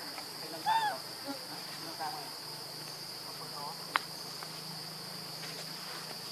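Insects droning steadily at a high pitch. About a second in, a short arched animal call rises and falls once, with fainter calls later and a single sharp click partway through.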